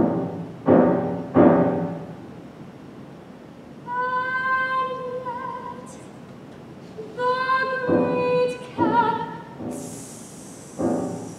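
Soprano singing with grand piano accompaniment: three struck piano chords, then two long held high notes with vibrato, the piano striking chords beneath the second and again near the end.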